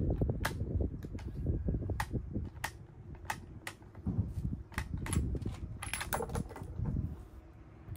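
Remington 770 bolt-action rifle's bolt being worked by hand, giving a string of sharp metallic clicks that crowd together about five to six seconds in, over a low rumble.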